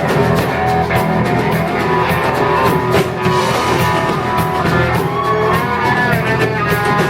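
Live rock band playing an instrumental passage: electric guitar over drums with regular cymbal hits, and a guitar note sliding downward about five and a half seconds in.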